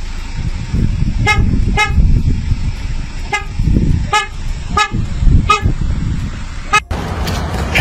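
Peugeot Boxer van's horn tooted seven times in short, unevenly spaced blasts, as if pressed by the dog sitting at the steering wheel, over a steady low rumble.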